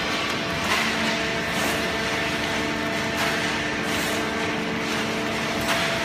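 Automatic horizontal cardboard baler running with its loaded feed conveyor: a steady machine hum with several held tones, broken by a few short clatters.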